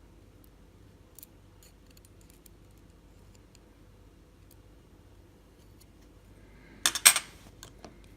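Small metal clicks and taps of lock picks and loose parts against a padlock body while fitting the small pin that retains the shackle: a few faint ticks, then a sharp cluster of loud clicks near the end followed by a couple of lighter ones.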